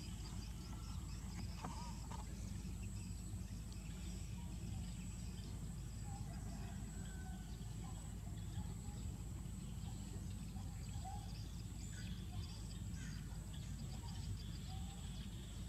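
Outdoor ambience: a steady low rumble with scattered short, faint bird chirps.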